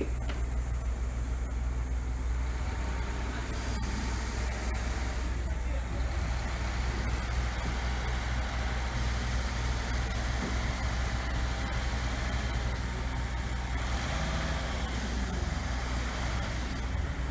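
Grove mobile crane's engine running steadily with a low rumble while it hoists a load.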